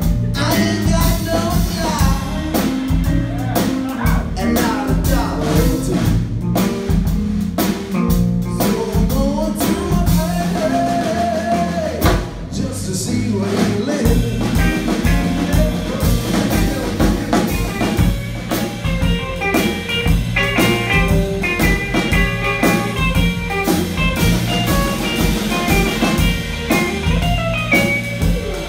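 Live blues band: a male singer over drum kit, electric bass and hollow-body electric guitar. Partway through, the singing stops and the electric guitar carries the tune in short, quick notes, as in a guitar solo.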